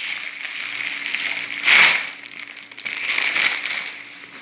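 Plastic packaging crinkling and rustling as a pop-it fidget toy is unwrapped, louder about two seconds in and again a little after three seconds.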